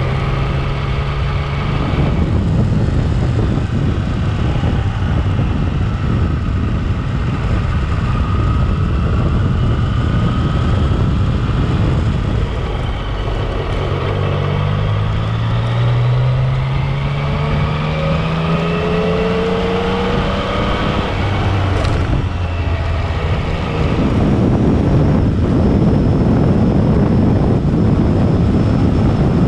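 Yamaha Tracer 900's three-cylinder engine running at low road speed, its pitch rising steadily as it accelerates about halfway through, with wind noise on the microphone. Near the end the wind rush grows louder as the bike travels at speed.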